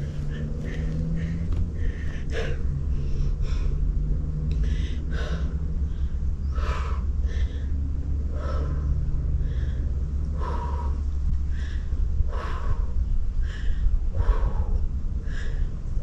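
A woman breathing hard and rhythmically, a short sharp breath about once a second in time with her dumbbell reps, over a steady low rumble.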